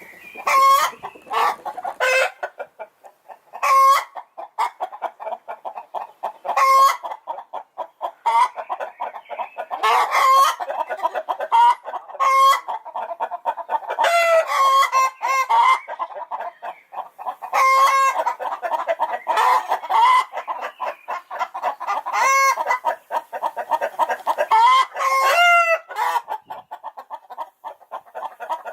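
Chickens clucking rapidly and continuously, with loud, short squawking calls breaking in every second or two, several of them in quick pairs or triples.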